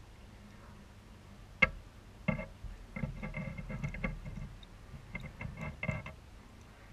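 A sharp click, then a run of irregular clicks and taps heard through the water while discus crowd in to feed, over a steady low aquarium hum.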